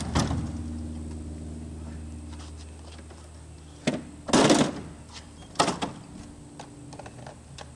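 Push mower being lifted down from a pickup bed and set on the pavement: a few knocks and clatters, the loudest about four and a half seconds in, with another about a second later. Under them a steady low hum slowly fades.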